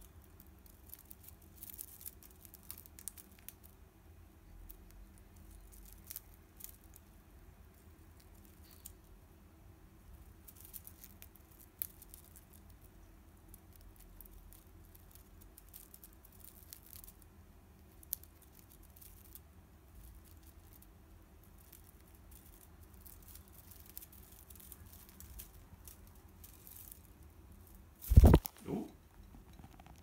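Budgerigar nibbling and tearing at a bundle of dried grass and seed heads, a faint scatter of small crackles and clicks. Near the end there are two loud thumps.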